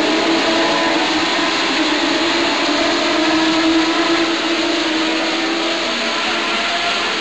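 A pack of Legend race cars running at speed, their Yamaha motorcycle engines blending into one loud, steady sound with a held engine note.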